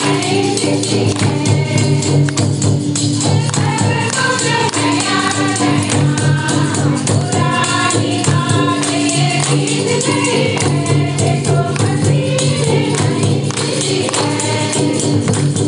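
A group of women sing a Ho Christian bhajan (hod bhajan) together, with hand clapping and a two-headed barrel hand drum keeping a quick, steady beat.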